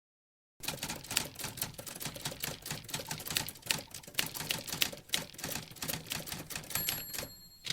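Rapid, irregular clacking of typewriter keys, then a short bell-like ding near the end.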